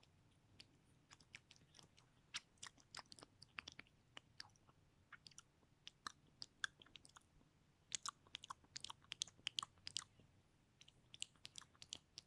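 Close-miked ASMR mouth sounds: irregular wet clicks and smacks of tongue and lips, in quick flurries with short gaps between.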